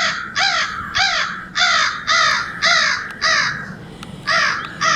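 Crows cawing: a steady run of loud, evenly spaced caws, about two a second, with a short break past the middle before the cawing resumes.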